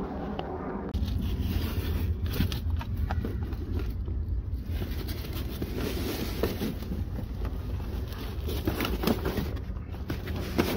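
A quilted faux-leather car floor mat being shifted and pressed into place by hand: repeated scraping and crackling rustles over a steady low rumble.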